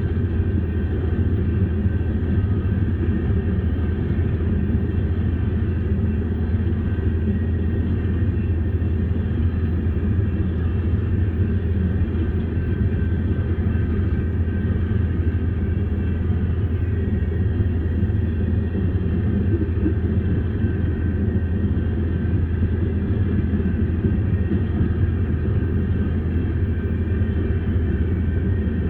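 Freight train of open-top hopper cars rolling steadily past, a continuous low rumble of wheels on rail, heard from inside a car.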